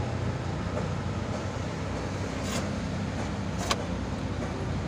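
Steady low hum of a running vehicle, with two short sharp clicks about two and a half and three and a half seconds in.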